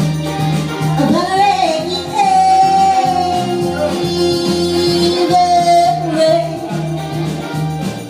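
Upbeat pop-soul song with a steady beat, a voice holding a long sung note over it from about a second in to about six seconds.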